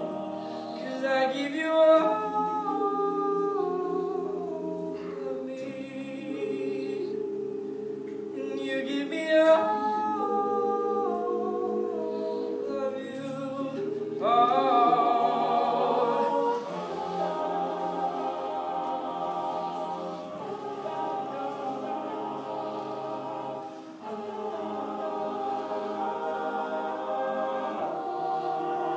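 All-male a cappella group singing in close harmony, a lead voice carrying the melody over sustained backing chords, with swells in volume a few times.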